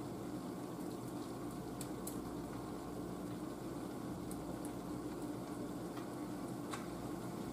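A large enamel stockpot of seasoned broth at a steady boil, bubbling continuously over a low hum. A few faint clicks come as potatoes and sausage are dropped in by hand.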